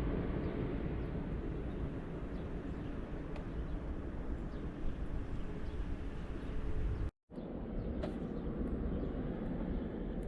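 Snowblower engine running steadily, breaking off for a moment about seven seconds in.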